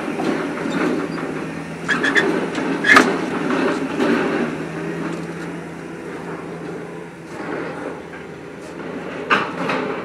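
MAIT HR130 rotary piling rig drilling, its diesel engine and hydraulics running steadily as the drilling tool turns in the ground. Sharp metal clanks come about two and three seconds in, the one at three seconds the loudest, and once more near the end.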